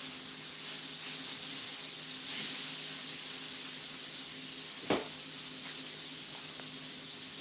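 Steak, bell peppers and onions sizzling on a Blackstone electric griddle: a steady hiss that swells a little two to three seconds in. A single sharp click about five seconds in.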